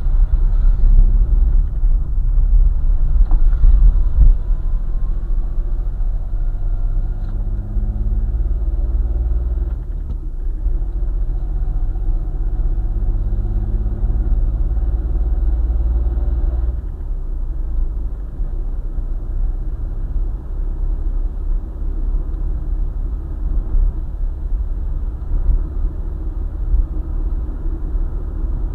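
Car driving on a highway: steady low engine and road rumble, with the engine pitch rising twice as the car picks up speed, then settling to a steady cruise.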